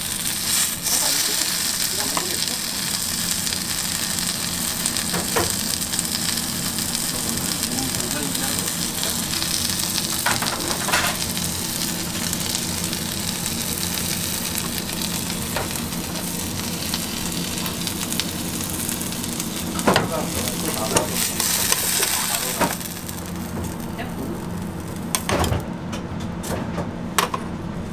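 Food sizzling steadily on a steel flat-top griddle, with scattered sharp clicks and scrapes of metal tongs against the griddle and wire rack. The sizzle drops somewhat quieter about two-thirds of the way through.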